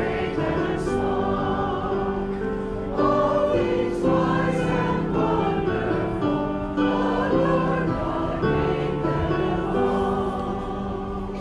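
A congregation singing a hymn together, many voices holding each note and moving to the next about every second.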